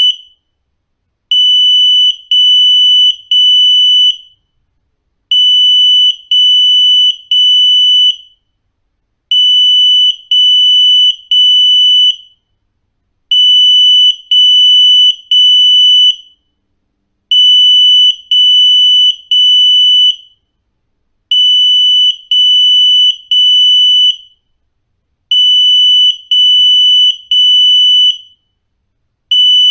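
Smoke-type residential fire alarm sounding in alarm during a test: a loud, high piercing beep in groups of three, each group followed by a short pause, repeating about every four seconds.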